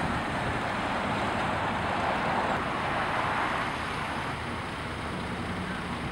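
Steady street traffic noise with wind on the microphone, swelling a couple of seconds in and easing off a little toward the end.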